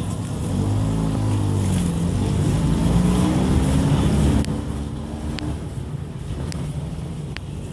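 Cargo truck driving close past, its engine note rising as it accelerates. The sound drops off sharply about halfway through, leaving a lower rumble and a few light clicks.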